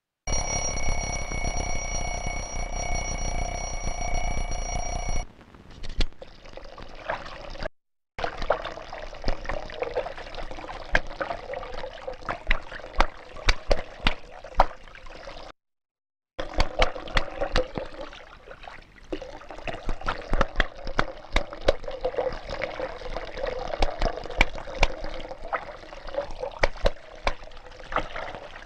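An alarm ringing with a steady, high multi-tone sound that cuts off about five seconds in. Then water trickling and splashing with many scattered clicks and knocks, broken twice by brief drops to silence.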